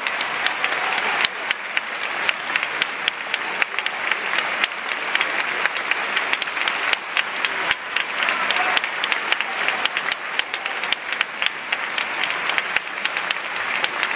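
Large audience applauding steadily, with many sharp individual claps close to the microphone standing out from the mass of clapping.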